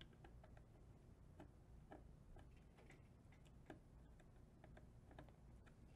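Faint, irregular small clicks and ticks, about a dozen, from wire ends and a small screwdriver being worked into the screw terminal block of an RGB LED controller, over a steady low hum.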